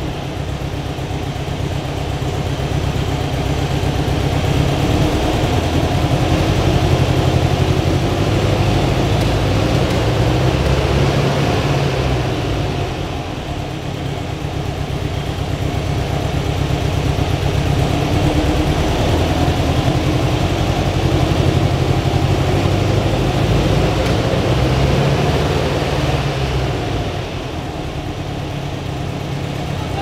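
Air-cooled VW flat-four engine with twin carburettors running near idle through a Vintage Speed Super Flow stainless muffler. The exhaust note swells and eases back twice.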